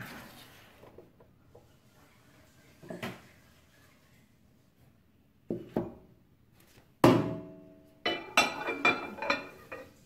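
A ceramic cup being handled and set down on a microwave oven's glass turntable, with knocks from the oven door. There are scattered single knocks, then a loud ringing clink about seven seconds in, followed by a run of ringing clinks and rattles.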